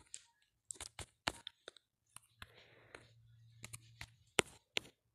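Irregular clicks of typing on a smartphone's on-screen keyboard, about a dozen taps. A soft hiss runs under them partway through.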